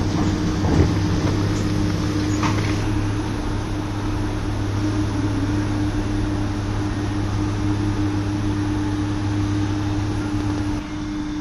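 Diesel engine of an L&T-Komatsu hydraulic excavator running steadily under load as it digs and swings soil into a dump truck, a constant humming drone. A single sharp knock comes about a second in.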